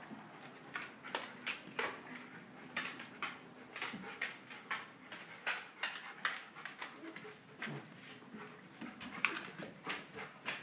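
A dog close by making a string of short, sharp noisy sounds, roughly two a second and irregular, with a faint whimper now and then.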